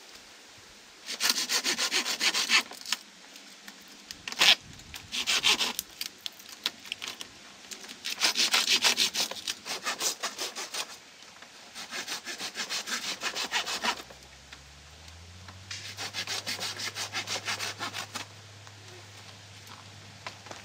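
Hand saw cutting through bamboo, in five spells of quick back-and-forth strokes with short pauses between them.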